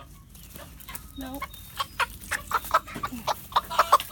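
Chickens clucking, with a quickening run of short sharp clucks over the last two seconds.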